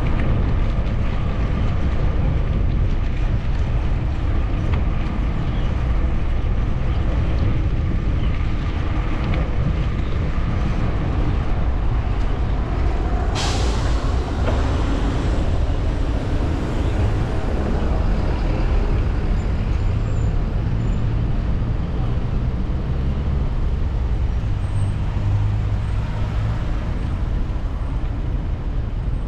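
Steady low rumble of wind on a bicycle-mounted camera's microphone, with passing road traffic. About 13 seconds in, a short sharp hiss of a truck's air brake.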